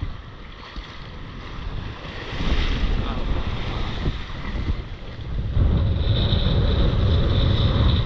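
Wind buffeting the microphone over the wash of small waves breaking in shallow surf. The low wind rumble grows louder about five and a half seconds in.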